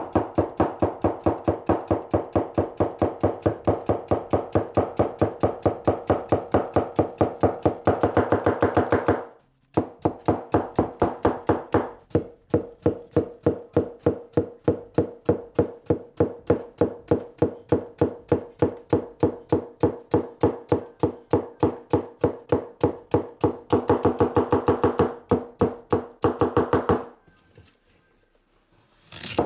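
A large carbon-steel gyuto chopping a leek in quick, even strokes on a wooden cutting board, about four to five chops a second, over background music. Both break off briefly about nine seconds in, carry on, and stop a couple of seconds before the end.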